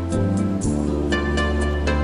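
Instrumental background music with sustained low notes and light, evenly spaced high ticks; the chord shifts about half a second in, and higher notes join about a second in.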